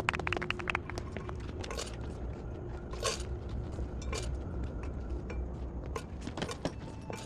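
A quick run of clicks in the first second, then scattered light clinks and knocks, one every second or so, over a low steady rumble.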